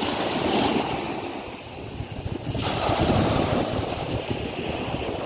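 Small sea waves washing onto a sandy beach, swelling and fading twice, with wind rumbling on the microphone.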